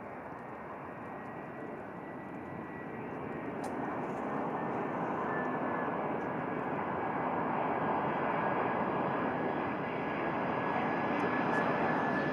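Airbus A340-300 airliner on final approach, its four CFM56 turbofan engines making a steady jet rumble with a thin high whine running through it. The sound swells louder over the first half as the aircraft nears, then holds.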